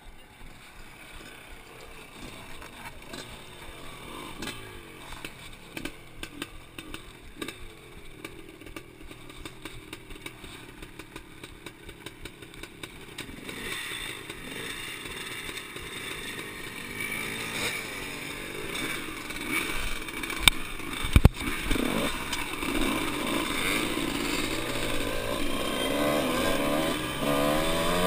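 Dirt bike engines, faint at first, then louder in the second half as the bikes ride off and the camera bike's own engine revs up and down. Two sharp knocks come about three quarters of the way through.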